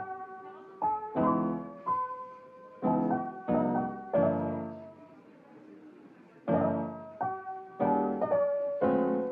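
Background piano music: notes and chords struck one after another, dropping away for a moment past the middle before picking up again.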